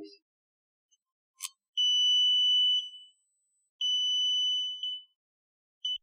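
A key clicks into a VIMA digital anti-theft lock cylinder, and the cylinder sounds its low-battery alarm: a steady high beep about a second long, repeating about every two seconds, warning that the batteries need replacing.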